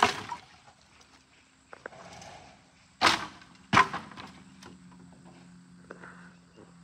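Sharp knocks of lumber: one at the start, then two close together about three seconds in, with fainter taps between.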